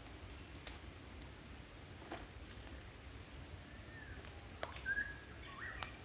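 Steady high-pitched insect drone with a slight pulse, with a few short falling bird whistles and a brief bird chirp about five seconds in, the loudest moment. A few sharp taps sound through it.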